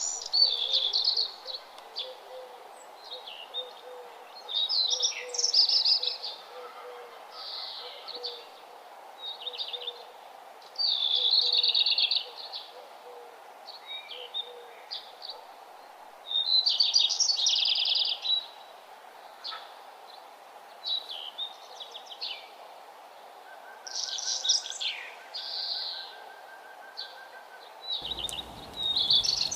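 Songbirds singing and calling in short, bright chirping phrases every second or few seconds, over a steady faint background hiss. The background changes abruptly near the end, as at a splice in the recording.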